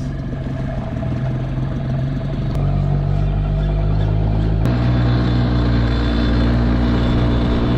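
Outboard motor on an inflatable skiff running steadily under way, its pitch changing twice, about two and a half and about four and a half seconds in.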